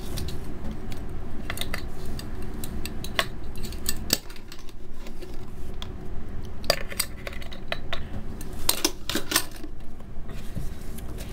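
Spoon and spatula clinking and scraping in a plastic mixing bowl as spoonfuls of flour go into soft biscuit dough: scattered clicks and taps, a small cluster near the end, over a steady low hum.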